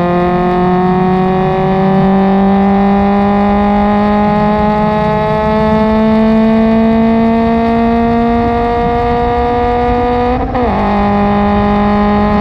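Subaru BRZ race car's 2.0-litre flat-four at full throttle, heard from inside the cabin, its pitch rising steadily as the car accelerates in fourth gear. About ten and a half seconds in, a brief dip marks the upshift to fifth, and the engine pulls on again from lower revs. It breathes through an aftermarket header and a single catback exhaust.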